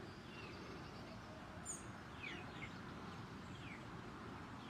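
Outdoor ambience: a faint, steady low rumble with scattered short, falling chirps from small wild birds, a small cluster about two seconds in and a single chirp near the end.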